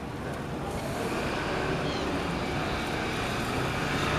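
Steady engine noise of motor traffic that slowly grows louder.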